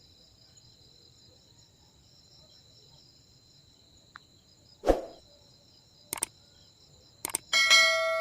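Insects trill steadily at a high pitch in the background. About five seconds in there is a single sharp thud, then two short clicks, and near the end a loud bell-like chime rings out and slowly fades.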